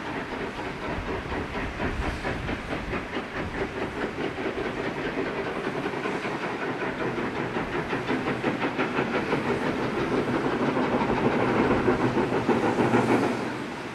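Steam locomotive working a train, its rapid exhaust beats growing louder as it approaches, then dropping away sharply near the end.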